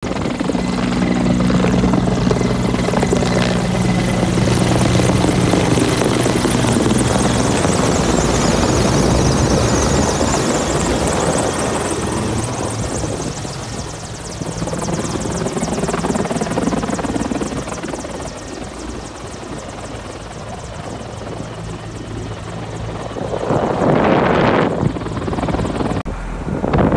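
Large firefighting helicopter passing overhead, its rotor and turbine engines running loud and steady, then growing quieter as it moves away. Near the end a brief, louder rush of noise.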